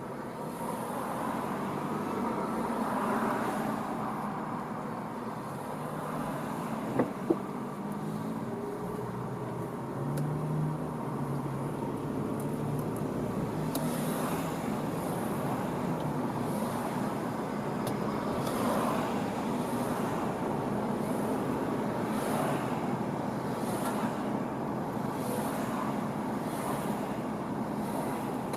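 Road traffic noise, a steady wash of vehicle and tyre sound, with two sharp clicks about seven seconds in.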